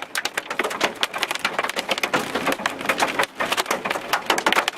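Rain pelting a moving vehicle's roof and windshield: a dense, irregular patter of sharp taps.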